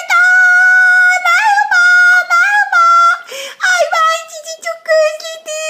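A very high-pitched voice singing held notes that step up and down. There is a short breath a little past three seconds in, followed by quicker sung syllables.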